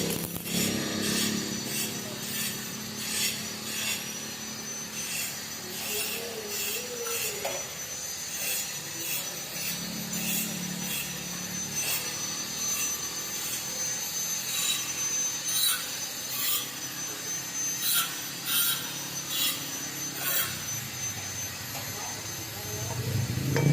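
Arc welding a horizontal bead: the arc crackles and sputters steadily with frequent sharper pops, over a faint steady high whine.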